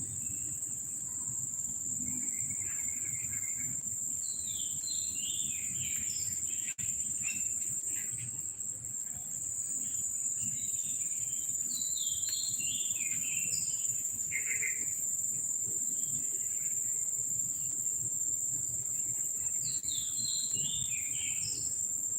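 Insects droning steadily at a high pitch throughout, with a bird singing three runs of short, quick falling notes.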